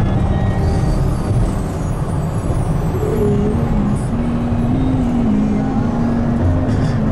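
Steady road and engine noise inside a car's cabin while driving on the highway, with music from the car stereo playing underneath and a melody showing more clearly from about three seconds in.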